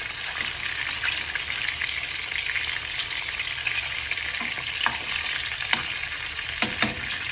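Frozen mutton koftas sizzling steadily as they shallow-fry in hot oil in a nonstick frying pan. A metal spoon turning them clicks against the pan several times in the second half.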